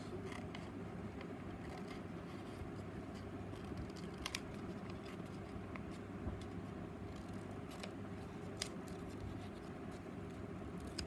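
Faint clicks and rustles of paper being handled, with a few sharper clicks, over a steady low hum.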